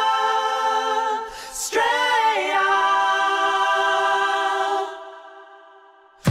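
Unaccompanied singing voice holding a long note, breaking off and sliding into a second long held note, which then fades out near the end.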